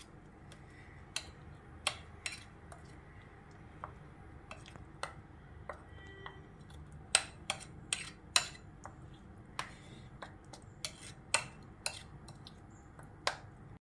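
A metal spoon stirring thick mango chutney in a ceramic bowl, clinking and scraping against the bowl in irregular sharp taps, some much louder than others. It stops suddenly near the end.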